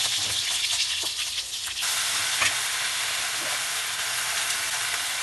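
Hot oil sizzling steadily in a kadai; about two seconds in the sizzle fills out as a heap of chopped mustard greens goes into the oil.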